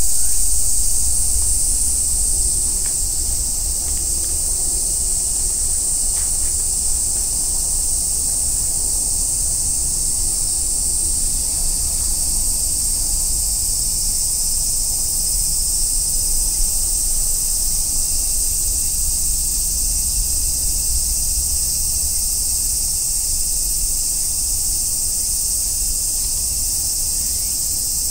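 A chorus of cicadas shrilling steadily in a dense, unbroken high-pitched drone, with a low rumble underneath.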